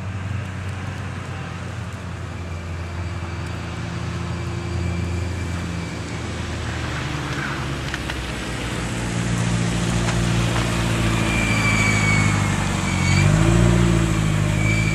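Vehicle engines running in slow traffic on a snow-covered road. The sound gets louder in the second half, and near the end an engine revs up, with a thin high whine alongside.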